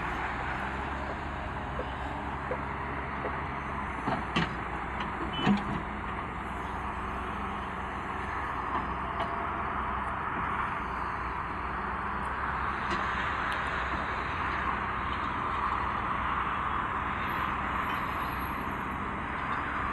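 A heavy earthmoving machine's engine running steadily, with a few sharp metallic knocks about four to six seconds in.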